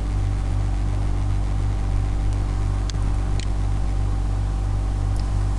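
Steady low hum with a layer of hiss, and two faint clicks about three seconds in.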